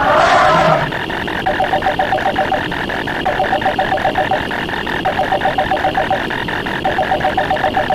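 A dense mix of layered sound effects: a rapid, even train of clicks with a trilling, ringing tone that comes in about one-second bursts, four times. A louder burst with low gliding tones fades out just under a second in.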